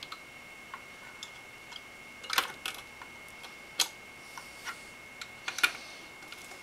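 Scattered sharp clicks and taps of a be quiet! Shadow Rock 2 CPU cooler's mounting screws and nuts knocking against the cooler and motherboard while they are fiddled into line to start the first screw.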